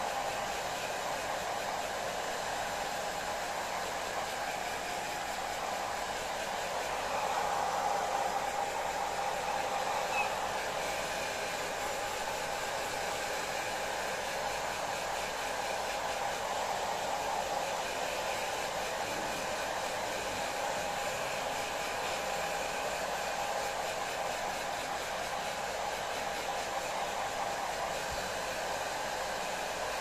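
Handheld hair dryer running steadily: a constant rush of air with a steady whine, a little louder for a few seconds about a quarter of the way in.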